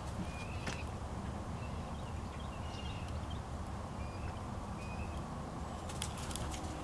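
Outdoor yard ambience: a steady low rumble with faint short bird chirps every second or so, and a quick run of clicks about six seconds in.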